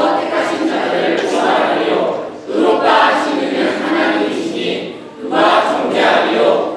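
A group of teenagers reciting a Bible passage together in unison, in phrases with short pauses about two and a half and five seconds in.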